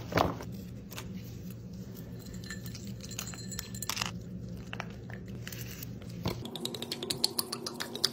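Gloved hands tossing chopped vegetables and lamb shanks in a plastic container, with scattered soft crunches and crinkles. About six seconds in, red wine starts pouring from the bottle onto the meat in quick, rapid splashes.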